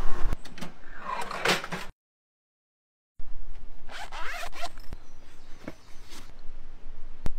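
Wind on the microphone at first, then after about a second of dead silence, the zipper of a Wüsthof knife case is pulled open in a few quick strokes. A few sharp clicks follow.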